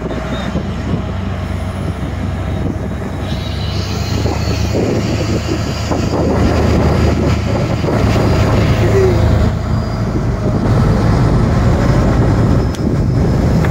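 Motorboat engine running under way, with wind rushing over the microphone; the drone grows louder about four and again about eight seconds in.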